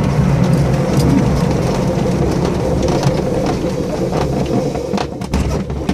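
Glider rolling out on a grass airfield after landing: its main wheel rumbling and the airframe rattling over the uneven grass, slowly easing off as it slows, with a few knocks near the end.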